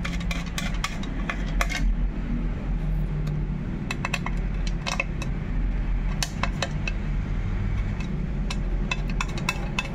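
Small metallic clicks and clinks, scattered irregularly, as a steel bolt and washer are threaded by hand into a newly set rivnut on a bike frame's bottle cage mount, over a steady low hum.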